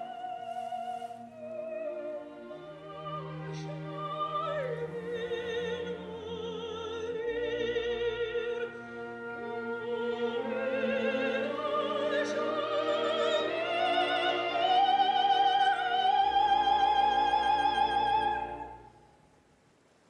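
Background music: a classical, operatic piece with a high voice singing with wide vibrato over sustained orchestral chords. The melody climbs and grows louder, then stops about a second before the end.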